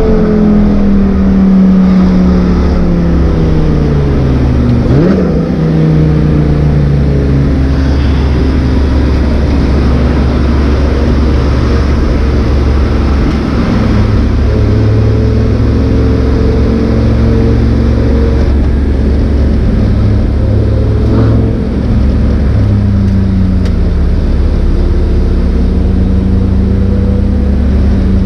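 Lamborghini Gallardo's V10 heard from inside the cabin, its note falling as the car slows, with a quick rev blip about five seconds in. It then runs steadily at lower revs over a constant low road drone, the revs slowly climbing again near the end.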